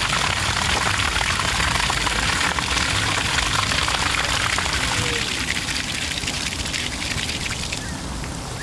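Dirty water gushing from a carpet extractor's drain hose and splashing onto asphalt as its recovery tank is emptied. The pour is steady at first and eases off somewhat toward the end as the stream thins.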